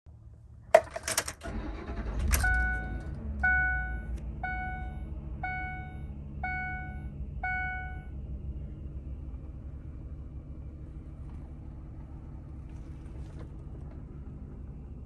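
2008 Ford F-150's 5.4L V8 started: a few sharp clicks, a short crank and the engine catches, then settles to a steady idle. A warning chime sounds six times, about once a second, over the first part of the idle.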